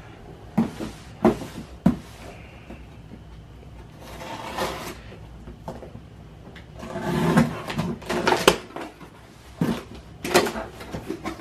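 Cardboard boxes and packaging being handled and opened: scattered knocks and clicks, with louder rustling and scraping about seven to eight and a half seconds in.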